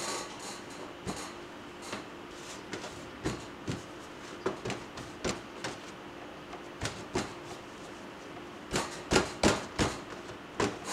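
Rolling pin and hands working rye bread dough on a stainless steel worktop: scattered light taps and knocks, with a run of louder pats near the end as the dough is rolled up and pressed.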